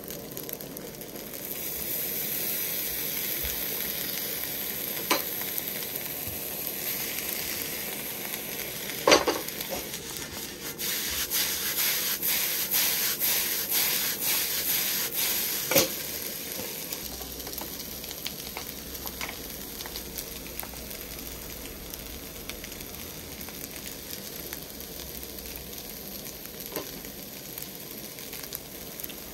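Fried rice sizzling in a wok over a single-burner gas stove, stirred with a metal ladle that scrapes and now and then knocks sharply against the pan. In the middle comes a louder stretch of quick stirring and tossing, after which the sizzle settles back to a steady hiss.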